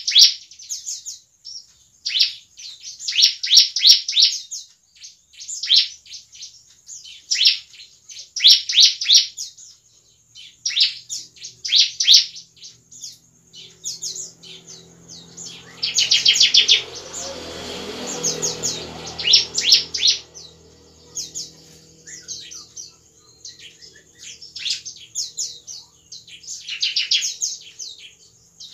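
Bar-winged prinia (ciblek) singing: quick runs of sharp, high chirps in short phrases, a second or two apart. A low hum comes in after the middle, swells briefly, then stays faintly under the song.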